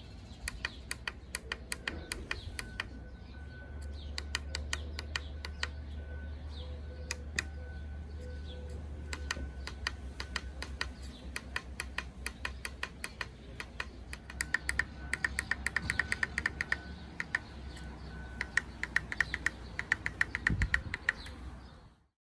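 Rapid runs of small clicks from the tactile push buttons of an Arduino LCD keypad shield, pressed over and over to step the RA and DEC readings up or down.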